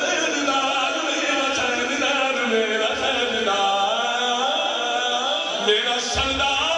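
A man's voice chanting a devotional kalam (naat recitation) into a microphone, in sung lines whose pitch bends and wavers without a break.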